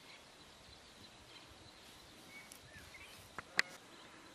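Faint outdoor ambience with a few scattered bird chirps, and two sharp clicks close together about three and a half seconds in.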